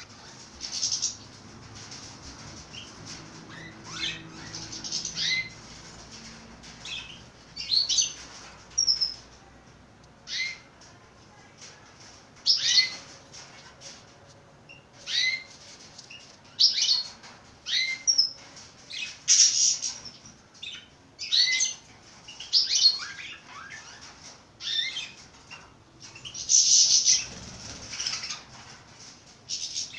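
Pet birds calling in short high chirps, repeated irregularly every second or two.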